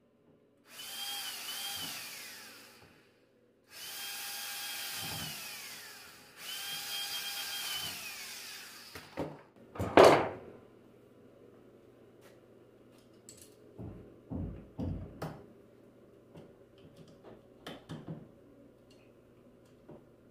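A power drill-type tool runs in three bursts of about two seconds each, its whine winding down as each burst stops. About ten seconds in there is one loud knock, followed by several lighter knocks of metal parts being handled.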